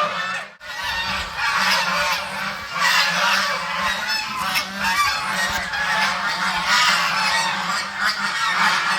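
A flock of ducks quacking continuously, many calls overlapping, with a brief dropout about half a second in.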